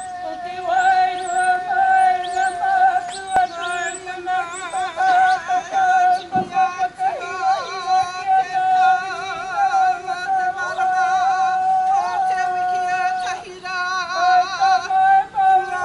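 Karanga, the ceremonial call of welcome: high, long-held chanted notes by women's voices, the pitch wavering on the held notes.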